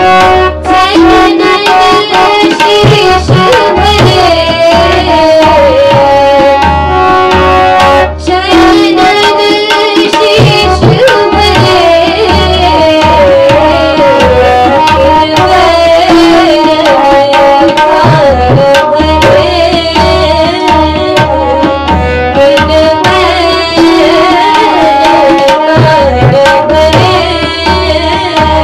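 A young woman singing a song over backing music with hand-drum percussion and a steady bass beat.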